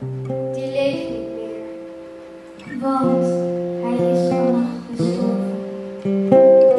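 Acoustic guitar strumming slow chords that ring out, a new strum roughly every second in the second half.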